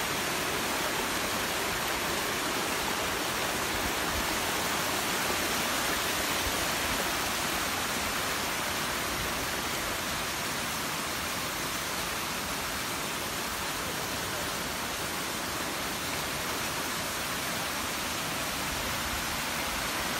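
Steady rushing of falling water from small waterfalls and a cascading stream, an even hiss with no breaks.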